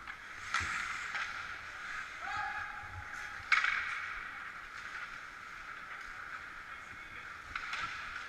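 Ice hockey rink during play: a steady scrape of skates on the ice under a few sharp knocks of sticks and puck, the loudest about three and a half seconds in. A voice calls out, held for about a second, a couple of seconds in.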